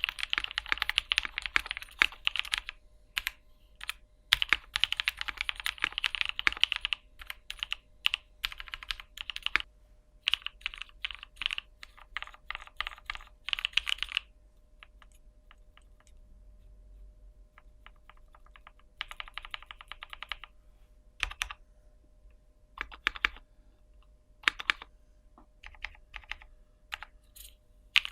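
Typing on a Polaris 60% gasket-mount custom mechanical keyboard with lubed Novelkeys Cream linear switches on a polycarbonate plate. Fast runs of keystrokes with short pauses for about the first fourteen seconds, then slower, scattered single key presses with one brief run.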